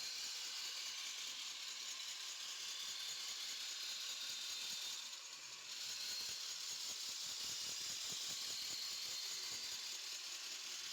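A saw cutting through wood: a steady hissing rasp that dips briefly about five seconds in, then carries on.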